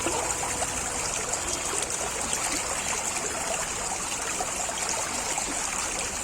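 Water flowing steadily in a stream, a continuous rushing and trickling.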